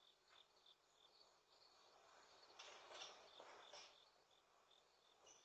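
Near silence with faint crickets chirping, a short chirp every third to half second, and a soft rustle around the middle.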